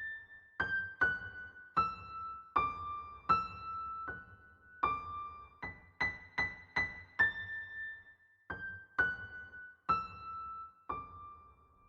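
Background music: a slow melody of single high notes, one at a time, each struck and left to ring and fade.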